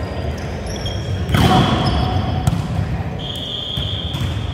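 Indoor volleyball in a large, echoing gym hall: sharp slaps of the ball being hit, the loudest about a second and a half in, with high squeaks of sneakers on the wooden court floor.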